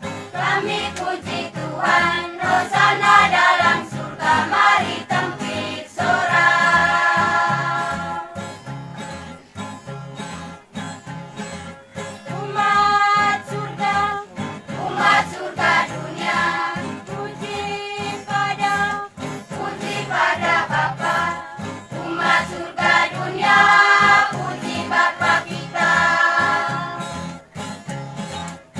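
Large church choir singing a worship song in parts, with acoustic guitar accompaniment. The voices swell into long held chords and ease off between phrases.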